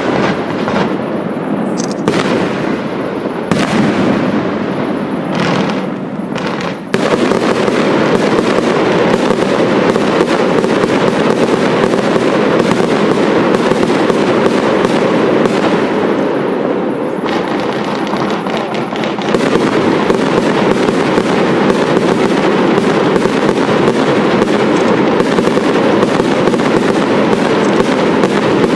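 Fireworks display: separate aerial shell bursts for the first several seconds, then suddenly, about seven seconds in, a dense unbroken barrage of rapid bangs and crackle.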